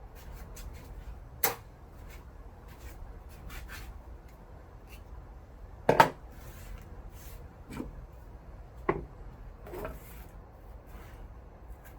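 Scrap wire being handled and sorted by hand: scattered knocks and clatters with light rubbing, the loudest a sharp double knock about six seconds in.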